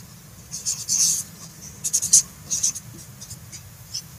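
Handling noise: a run of short, scratchy rustles, several in a row, over a faint low hum.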